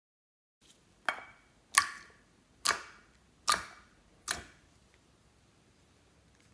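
Five sharp pops or clicks, spaced a little under a second apart, each dying away quickly.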